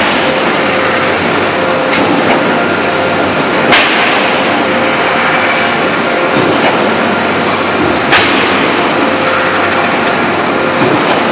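A 2000-ton open die forging press working a red-hot forged ring: a loud, steady machinery drone with a faint constant hum, broken by sharp bangs about two, four and eight seconds in.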